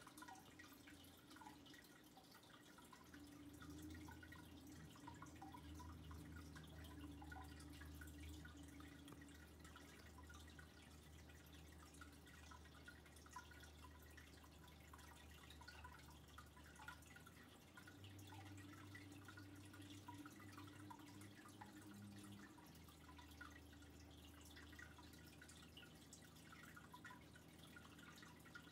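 Near silence: a faint steady low hum with scattered faint ticks.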